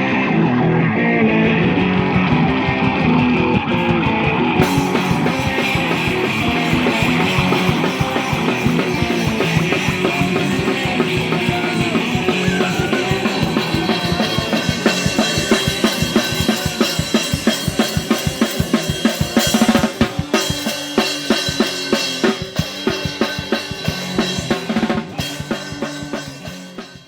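Live improvised band music: a drum kit keeping a fast, even beat under guitar and other instruments, cutting off abruptly at the end.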